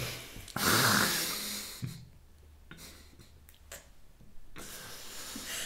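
A woman breaking into stifled, breathy laughter: a loud burst about half a second in, a lull, then more laughter near the end.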